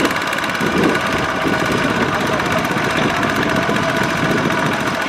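Single-cylinder diesel engine of a two-wheel walking tractor running steadily under heavy load, a fast, even chugging, as it drags a loaded trailer up a muddy bank.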